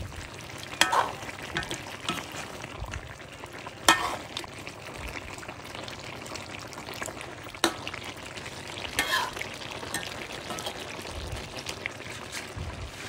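Goose meat sizzling steadily in a steel wok while a metal ladle stirs it, the ladle clinking sharply against the pan about four times.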